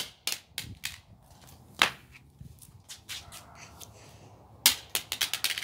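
Half of a broken plastic Samsung flip phone being flipped, clacking as it is caught and lands: a few separate sharp clacks, one loud one about two seconds in and a quick clatter of clicks near the end.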